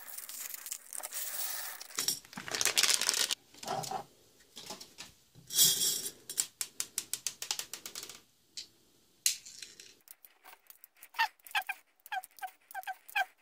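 A plastic bag crinkling and 6 mm plastic airsoft BBs rattling into a plastic dish, then a quick run of small sharp clicks, about three a second, as BBs are pressed one by one into an airsoft pistol magazine.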